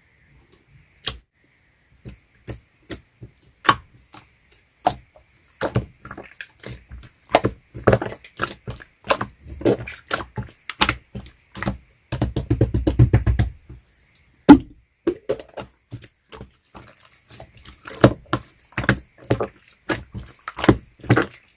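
Slime being played with by hand, giving sharp clicks and pops: a few spaced about a second apart at first, then coming quickly, with a dense run of crackling about twelve seconds in.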